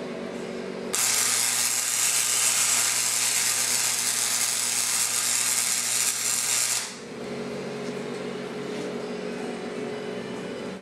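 Flux-core wire welder laying a bead on quarter-inch steel bar: a loud, steady sizzling hiss that starts about a second in, lasts about six seconds and stops sharply, over a low hum. A steady background hum fills the rest.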